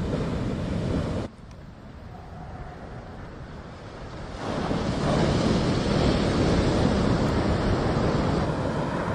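Rushing noise of wind on the microphone and surf. It drops suddenly about a second in to a quieter stretch, then swells back up a few seconds later.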